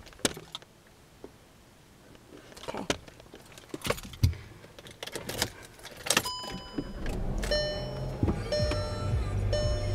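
Keys jangling and scattered clicks and knocks inside a car, then about six seconds in the car is started: a steady low engine rumble sets in, and the car radio begins playing music.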